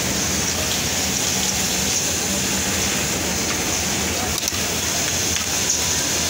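Steady hiss and hum of a garment-factory sewing floor, machines running, with no distinct strokes or knocks.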